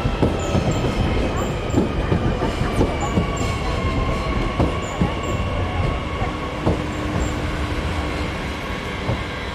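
Double-deck Transilien electric commuter train passing, its wheels clicking over rail joints and points with a steady high whine over the rumble. The sound eases off near the end.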